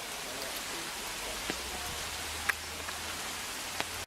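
Steady rain falling, a continuous hiss with a few louder drips landing.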